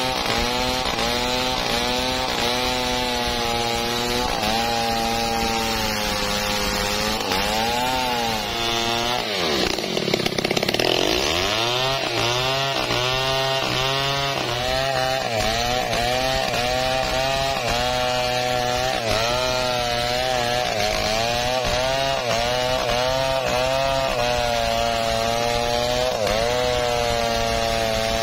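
Stihl chainsaw cutting lengthwise along a teak log, its engine running at high revs under load, the pitch wavering as the chain bites. About ten seconds in, the revs drop sharply and then climb back up.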